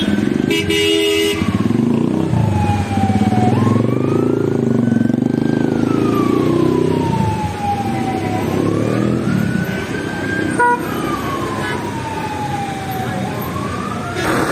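An emergency vehicle siren wailing, its pitch rising and falling slowly about every five seconds, over road traffic noise. A car horn sounds briefly about a second in.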